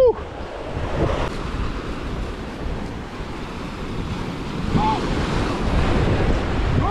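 Sea waves breaking and washing over rocks at the shoreline, with wind buffeting the microphone.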